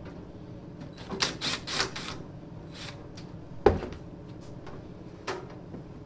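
Rattling and knocking from the sheet-metal heater casing as its front panel is handled and worked loose: a quick run of clattering strokes about a second in, then a single sharp knock just before the midpoint and a lighter one near the end.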